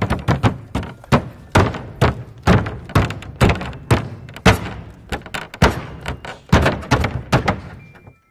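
A ballerina's knife-tipped pointe shoes striking a wooden table top in quick steps: a steady run of sharp knocks, about two to three a second, that thins out and fades near the end.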